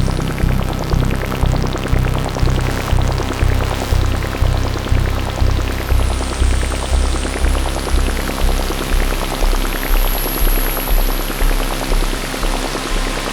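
Analogue synthesizer noise music from a Moog Dark Energy: a low bass pulse repeats about twice a second under a dense, crackling, rain-like hiss. A high whistling tone dips in pitch about six seconds in, then rises back.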